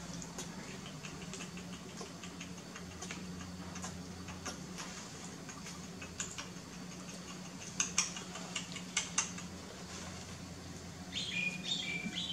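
Scattered small clicks and taps, with a few sharper clicks about eight to nine seconds in, over a low steady hum; near the end a baby monkey gives a run of short, high squeaks.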